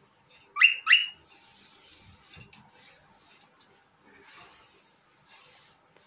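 Female cockatiel giving two short, loud rising whistles in quick succession about half a second in, then only faint sounds.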